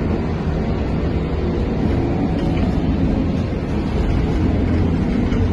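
Inside a Trolza-5275.06 Optima trolleybus on the move: a steady low rumble of tyres and body noise with a faint hum from the drive.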